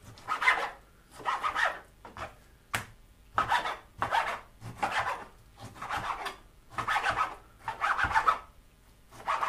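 Chef's knife slicing raw chicken breast into strips on a plastic chopping board: a run of short scraping, rasping strokes, roughly one or two a second, as the blade draws through the meat and onto the board.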